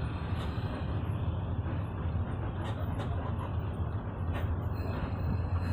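Steady low rumble of a car travelling on the road: engine and tyre noise.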